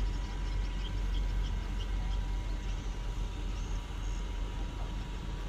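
Low, steady rumble of heavy loaded trucks' diesel engines running.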